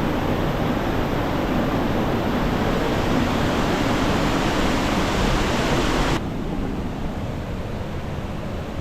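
A large waterfall roaring with a steady rush of falling water. About six seconds in it drops suddenly to a softer, duller rush.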